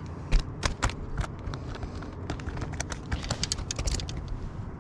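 Irregular light clicks and taps, some in quick runs, over a steady low rumble.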